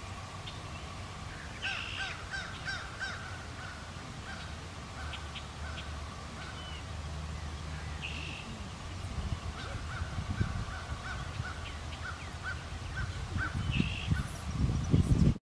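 Birds calling in runs of short repeated notes, over a low steady rumble that turns uneven and louder near the end.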